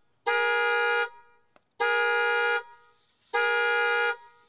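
Car horn honking in a steady repeating pattern, three long honks about a second and a half apart: a car alarm going off on the car being opened.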